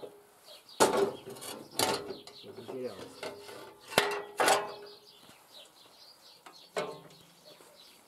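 Metal parts being handled and set down on a tractor's steel frame: about five sharp metallic knocks and clanks spread out, some ringing briefly.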